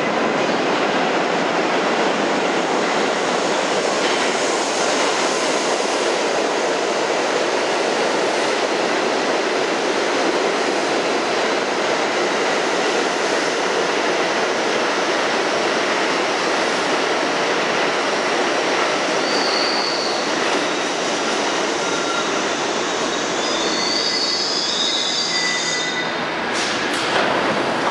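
R68-series New York City subway train running through the station: a steady, loud rumble of steel wheels on the rails. Short high wheel squeals come in about two-thirds of the way through and again near the end, followed by a few sharp clicks.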